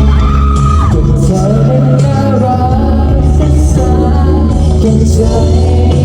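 Live pop band music played loud over a hall's sound system, with heavy bass notes and a singing voice.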